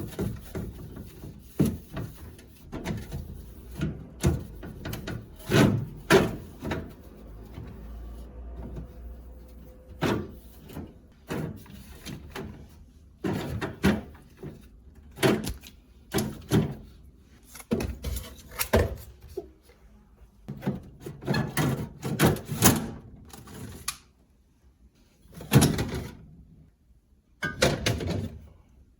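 Irregular knocks, thunks and clatters of kitchen cupboard doors, drawers and household items being opened, shut and moved about while a kitchen is cleaned and organized. The sound breaks off abruptly a couple of times near the end.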